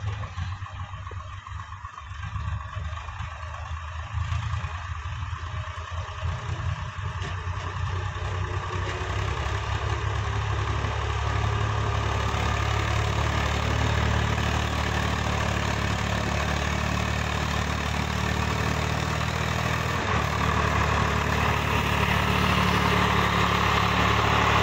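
Diesel farm tractor engine running steadily under the load of a full trailer, growing louder as the tractor comes closer.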